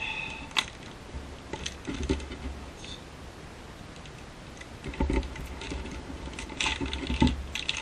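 Plastic bait bag of soft-plastic craw trailers crinkling and crackling as hands work to pull it open, in irregular clusters that are busiest near the end.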